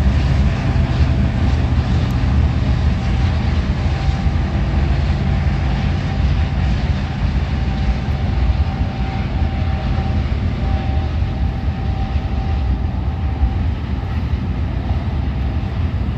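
Loaded ore train rolling over a steel railbridge: the diesel engines of its distributed-power locomotives drone steadily over the rumble of wheels and cars. A faint thin steady tone comes and goes from about three to thirteen seconds in.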